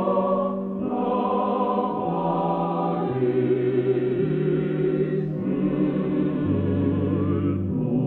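Background choir music: voices singing slow, held chords that move to a new chord about once a second.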